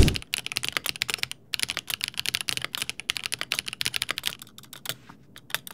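Fast typing on a Geon Works Frog TKL custom mechanical keyboard fitted with TTC Speed Silver V1 linear switches, a rapid run of key clicks with a short pause and sparser strokes near the end. This is the board's sound before repair, which the builder calls serious: its stabilizers, the spacebar above all, were never properly tuned.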